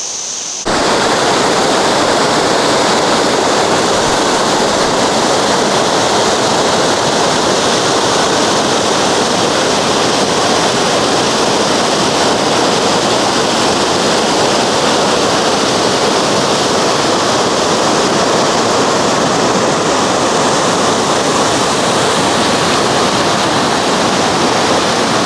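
Elephant Falls, a large waterfall, with water pouring and crashing in a loud, steady rush. It cuts in suddenly about half a second in.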